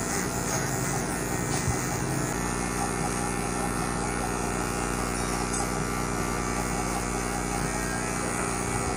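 Electric hair clipper buzzing steadily as it cuts hair over a comb.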